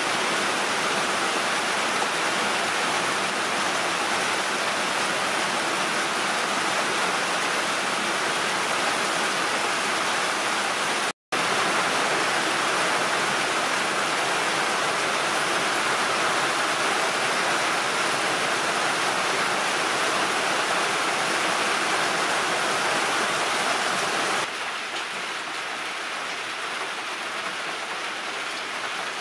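Heavy rain falling steadily, an even hiss with no lulls. It cuts out for an instant about eleven seconds in, and sounds softer over the last few seconds.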